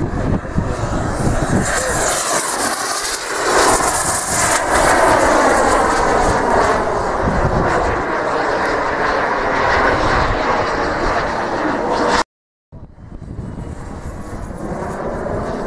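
Turbine engines of radio-controlled Sukhoi Flanker scale model jets running at flying power as the jets pass overhead: a loud, steady jet roar with whining tones that slide in pitch as the aircraft move. A little after twelve seconds the sound cuts out completely for about half a second, then returns somewhat quieter.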